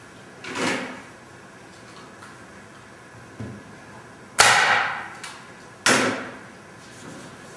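Staple gun driving staples through canvas into a wooden stretcher frame: two sharp, loud shots about a second and a half apart, a few seconds in. A softer, slower-rising noise comes near the start.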